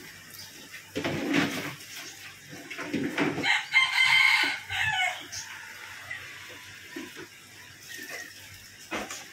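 A rooster crowing once, a drawn-out call lasting about a second and a half around the middle, with a shorter, fainter sound a second in.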